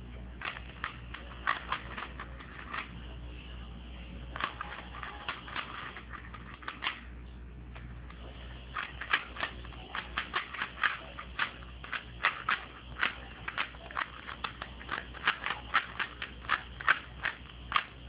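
Plastic Rubik's Cube layers being turned by hand while it is solved: runs of quick, sharp clicks and clacks with short pauses between them, coming faster and more densely in the second half.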